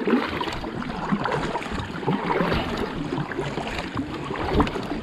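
Water splashing and rushing against a sit-on-top kayak as it is paddled forward, with wind rumbling on the microphone.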